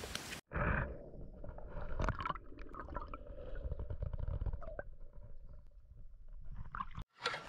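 Muffled underwater sound from a camera submerged in a shallow gravel stream: a low rumble of moving water with gurgles and a few short knocks. Almost nothing high comes through, as is usual for a camera in a waterproof housing.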